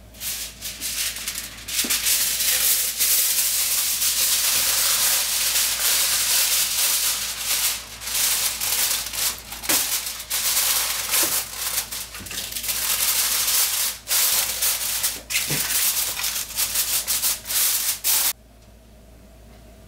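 Aluminium foil crinkling and rustling as it is spread over a baking dish and pressed around the rim, with sharp crackles throughout. It stops abruptly near the end.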